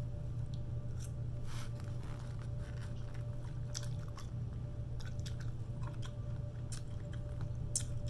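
A person chewing food close to the microphone, with scattered wet mouth smacks and clicks, over a steady low hum.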